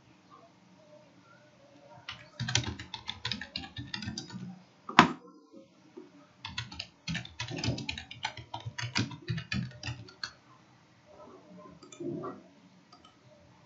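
Typing on a computer keyboard: quick runs of key clicks separated by pauses, with one sharper, louder keystroke about five seconds in.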